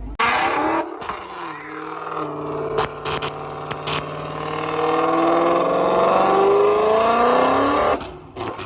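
Car engine at high revs under load, its pitch climbing steadily for several seconds over a loud rushing noise. It starts suddenly and cuts off about eight seconds in.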